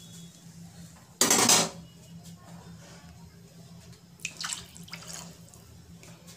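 A steel ladle stirring thin curry in a metal cooking pot: a loud scrape against the pot about a second in, then lighter scrapes and knocks of the ladle around four and five seconds.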